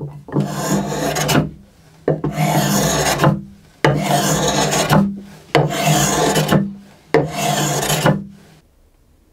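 Small brass plane shaving a cello's ebony fingerboard: five long scraping strokes, each starting sharply, as the grooves worn into the fingerboard are planed smooth.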